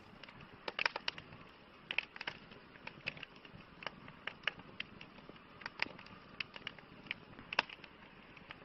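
Crackling campfire: irregular sharp pops and snaps over a soft, steady hiss.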